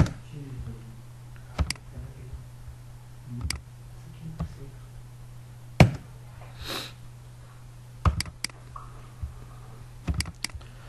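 Computer mouse clicks and keystrokes: single sharp clicks every couple of seconds, then two quick runs of clicks near the end, over a steady low hum. A brief soft hiss comes a little after halfway.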